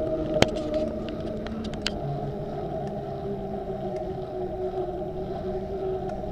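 Bicycle rolling along a paved path: a steady droning hum from the moving bike, whose pitch shifts about two seconds in, with one sharp rattle about half a second in and a few lighter clicks after it.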